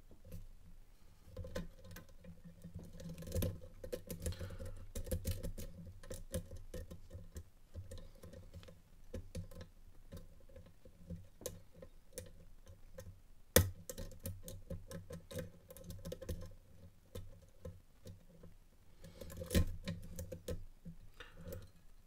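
Lock picking in a Corbin Russwin Access 3 pin-tumbler core: a run of faint metallic ticks and scrapes as a hook pick works the pins against tension, with one sharp click a little past halfway and another near the end.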